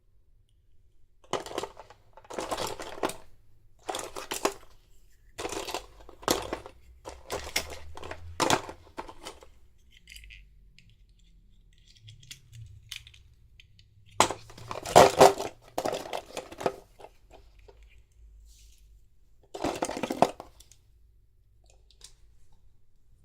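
Toy packaging being handled and opened: a series of short rustling, tearing and scraping noises. They come in quick succession at first, pause, then return in a louder cluster about two-thirds in, with one more near the end.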